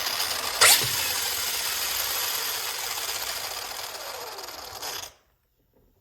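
Arrma Kraton RC truck's drivetrain spinning under motor power, a steady mechanical whir with a sharp jolt under a second in, easing off slowly and cutting off suddenly about five seconds in: running the differentials to break them in.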